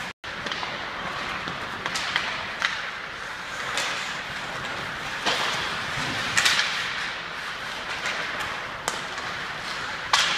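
Ice hockey play in a large rink: sharp cracks of sticks hitting the puck and skates scraping on the ice, every second or so, the loudest about six seconds in and near the end, over the steady noise of the hall. The sound cuts out for a split second at the start.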